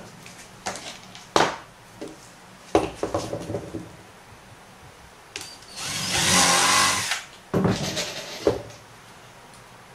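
Cordless drill runs for about a second, driving a screw into the wood frame. Before and after it come scattered knocks and clicks from tools and the clamp being handled on the bench.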